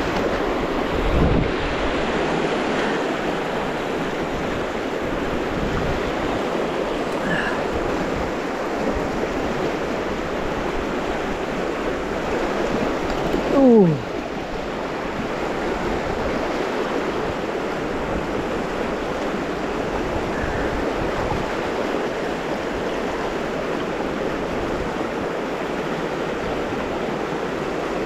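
River rapids rushing steadily around a wading angler. About halfway through, a short loud sound slides sharply down in pitch.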